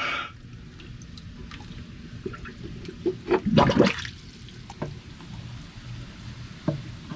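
Pond water sloshing and lapping with small splashes as a snorkeler shifts about in it, heard from a camera at the waterline, with one louder gush of water about three and a half seconds in.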